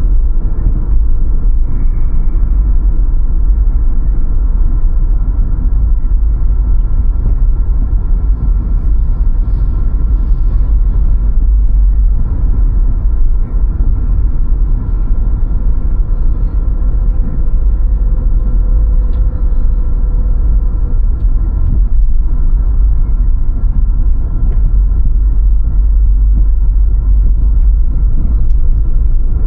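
Steady low rumble of a car driving: road and engine noise with wind on the microphone.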